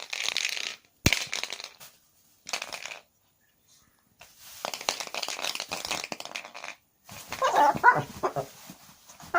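Chihuahua puppy worked up over a toy it cannot bite: short hissy scuffling bursts, then high growls and yips near the end.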